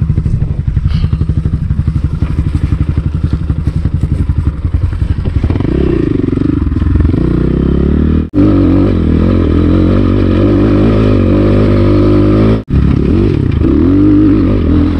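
Enduro dirt-bike engine running at low revs with a rapid pulsing beat, then opening up and pulling steadily under throttle about five seconds in. The sound drops out abruptly for a split second twice.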